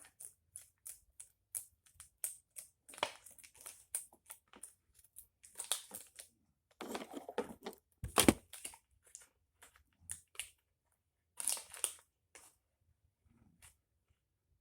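Plastic packaging of a glitter slime being crinkled and pulled open by hand: a run of irregular crackles, the loudest about eight seconds in.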